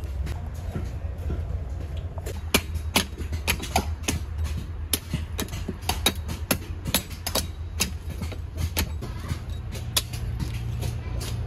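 A heavy knife chopping at a coconut's hard shell, chipping it off the white kernel: sharp, irregular knocks, roughly two a second. A steady low hum runs underneath.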